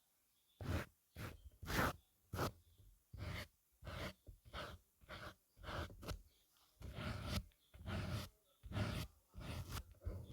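Makeup brushes swept over the microphone for ASMR: a run of short, soft swishes, about two a second, some drawn out longer.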